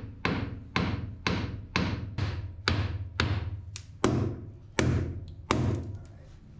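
A hammer striking the boat's propeller shaft about twice a second, tapping it forward. There are about a dozen sharp blows, each ringing briefly, and they stop a little before the end.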